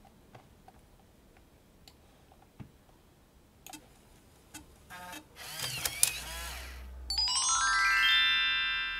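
Sony MP-F75W floppy drive in a Macintosh SE/30 auto-ejecting a disk: after a few faint clicks, about five seconds in the eject motor whirs and its gear unit drives the disk out with a short clatter, a sign that the repaired auto-eject mechanism works. Just after, a rising run of chime-like notes, an added sound effect, rings out and slowly fades.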